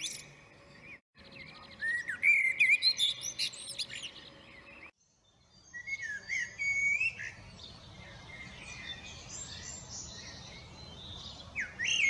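Common blackbird singing: varied fluting whistled phrases mixed with higher twittering notes. The song breaks off briefly twice, about a second in and about five seconds in.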